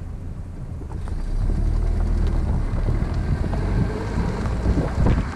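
Car engine and road noise as the car drives along, a steady low rumble that gets louder about a second and a half in.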